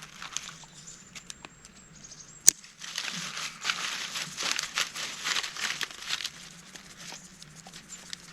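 Pepper being shaken from a plastic spice dispenser into a cooking pot. Small clicks and one sharp snap of the dispenser lid come first, then about three and a half seconds of quick rattling shakes.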